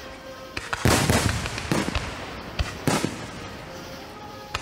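Aerial fireworks going off: a rapid cluster of loud bangs about a second in, then single booms near the middle and again near the end.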